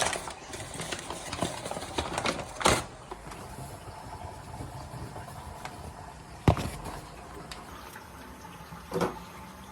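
Bread dough being mixed and kneaded by hand in a bowl, with soft rustling and three knocks against the bowl, the loudest about six and a half seconds in.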